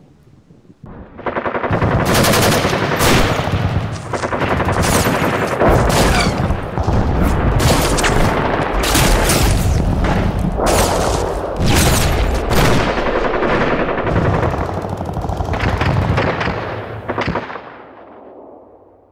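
Sustained automatic machine-gun fire: a dense stream of rapid shots that starts about a second in, keeps going for some sixteen seconds and dies away near the end.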